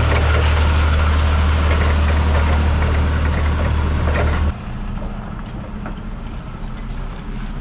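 Heavy vehicle engine running with a steady low rumble. About four and a half seconds in, the sound drops suddenly to a quieter engine rumble that carries on.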